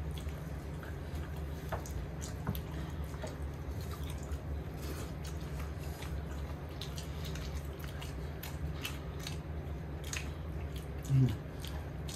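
Eating sounds: many small wet clicks and smacks of chewing over a steady low hum. A short low voiced sound near the end.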